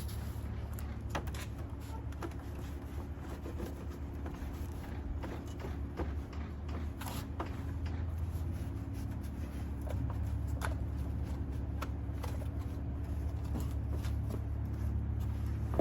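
Rag wiping over an engine bay: scattered light rustles and clicks over a steady low hum.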